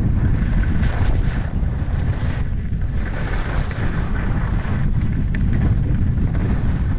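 Wind buffeting an action camera's microphone during a fast ski descent, a loud steady rumble, with swells of hiss from skis scraping the groomed snow that come and go with the turns.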